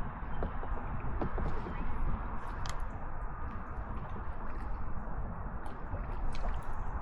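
Kayak paddle strokes in the water: small splashes, gurgles and drips with light knocks, over a steady low rumble.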